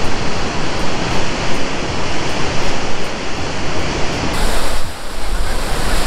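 Waterfall pouring over rock into a pool, a loud steady rush of water that dips briefly about five seconds in.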